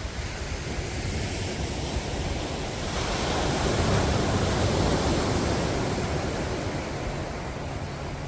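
Ocean surf breaking and washing up the beach, swelling about three seconds in and easing off again.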